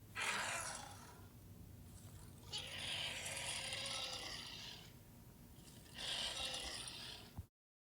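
Made-up sandworm creature sound effect: three hissing, rasping calls, a short one at the start, a longer one about two and a half seconds in and a third near the end, before it cuts off abruptly.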